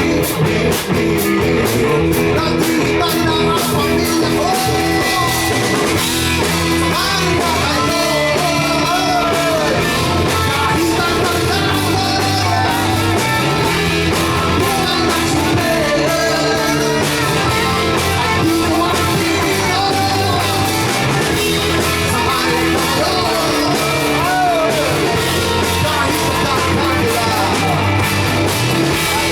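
Rock song with a singer over guitar, bass and drums, playing at a steady loud level.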